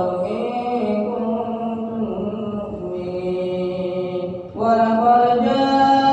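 Quran recitation: a single voice chanting in long, held melodic notes. It pauses briefly about four and a half seconds in, then starts the next phrase louder.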